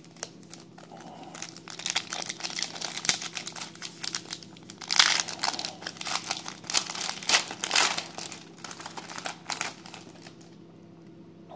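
Foil wrapper of a 2017 Topps Stadium Club baseball card pack being torn open and crinkled by hand: a dense crinkling that is loudest about halfway through and dies away near the end.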